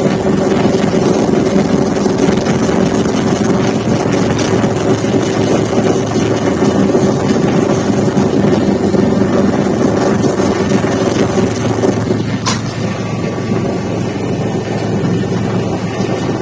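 Steady drone of an aircraft's engines and airflow heard inside the cabin, with a constant low hum under a broad rushing noise. A single sharp click comes about twelve seconds in, after which the hum's upper tone fades and the drone eases slightly.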